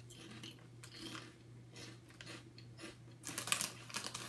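Crinkling and rustling of a foil snack bag of pork rinds being handled, with a louder run of crackles near the end as a hand reaches into the bag.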